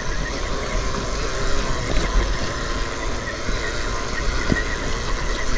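Electric trial motorcycle being ridden downhill over grass, heard from a helmet camera: a steady rumble of wind and bumps on the microphone, with a faint high whine.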